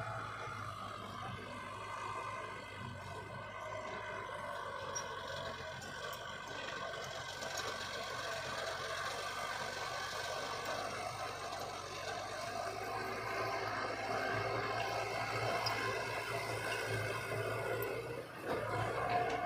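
Engine of heavy earthmoving machinery running steadily under work, dipping briefly near the end and then coming back louder.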